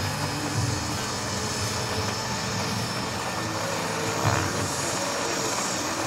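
Small model gas turbine running at a steady whine, with a thin high tone over a rushing noise and a low rumble that swells and fades.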